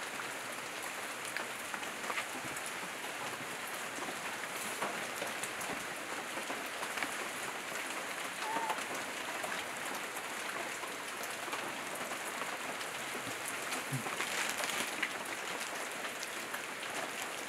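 Steady hiss of falling rain, with scattered light ticks of drops.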